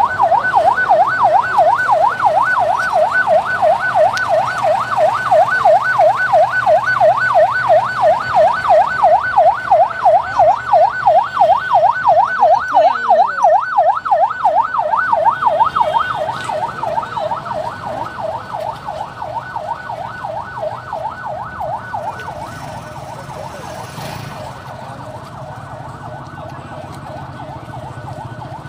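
Patrol vehicle siren wailing in a fast up-and-down yelp, several sweeps a second. It grows fainter a little past halfway.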